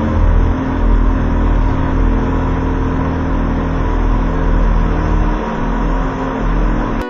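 An engine running steadily at an unchanging pitch, with a low drone and a noisy hiss above it. It cuts off abruptly at the very end.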